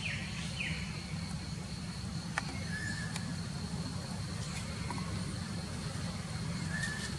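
Steady low rumble with a thin, steady high whine above it, broken by a few scattered clicks and short chirps.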